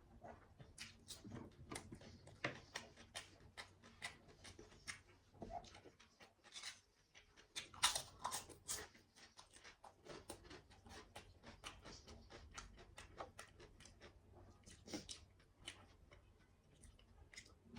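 A person eating, close to the microphone: an irregular run of short wet clicks and smacks from chewing, several a second, with a louder cluster about eight seconds in.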